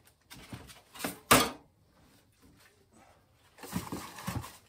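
Kitchen handling noises: a loud, sharp clatter about a second in, with softer knocks around it, then a quiet spell and more knocking and shuffling near the end.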